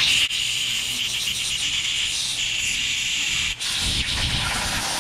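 Steady hiss from a thin nozzle spraying into a partly drilled-out, seized lug nut, with short breaks near the start and about three and a half seconds in.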